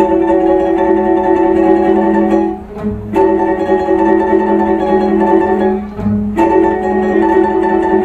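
Orchestra playing held chords in phrases of about three seconds, with a short break between phrases about three and six seconds in.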